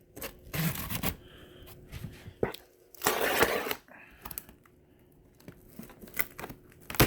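A cardboard shipping box being cut open with a craft knife: rasping slices through the tape and cardboard, the loudest lasting under a second about three seconds in, with scattered clicks and a sharp knock near the end.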